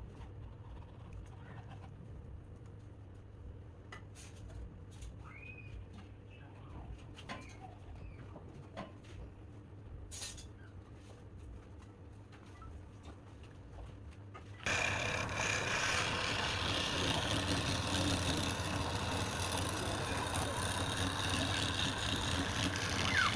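A low hum with scattered clicks and faint bird chirps, then about fifteen seconds in a loud, steady rushing noise from a woodworking machine starts suddenly.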